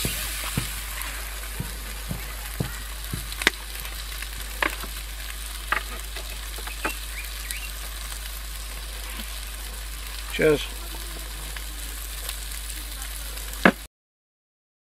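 A burger patty sizzling in a frying pan on a camp stove, with a few sharp clicks. It cuts off suddenly near the end.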